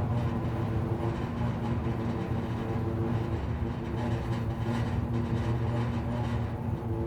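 Electricity pole and its wires humming in the wind like an aeolian harp: a steady low hum with several higher tones that fade in and out, over wind noise that swells now and then.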